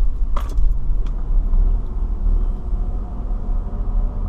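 Car driving slowly on a park road, heard from inside the cabin: a steady low rumble of engine and tyres, with two short clicks in the first second.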